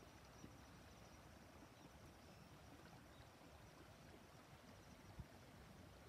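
Near silence: faint outdoor ambience with a steady low hiss, broken by two soft clicks, one about half a second in and one near the end.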